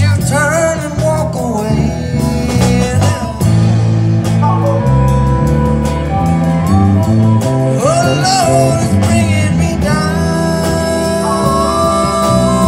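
Live blues band playing an instrumental passage: a harmonica played into a microphone, with bent notes and long held notes, over electric guitar.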